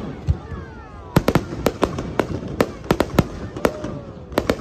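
Aerial fireworks display: a rapid, irregular string of sharp bangs from shells bursting overhead, about a dozen in under five seconds.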